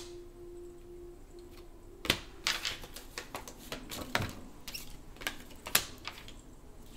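Tarot cards being handled: a scatter of sharp, irregularly spaced clicks and taps.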